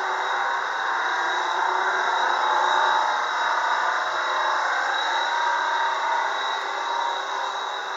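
Steady running noise of a vehicle, engine and road sound together, with a thin high whine, swelling slightly about two to three seconds in.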